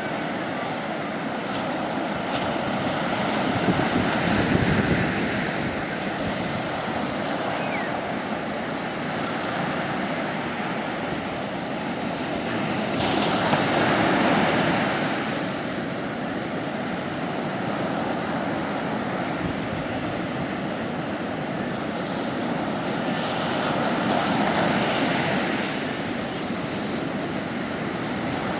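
Sea waves breaking and washing up on a beach, the surf swelling three times, roughly ten seconds apart.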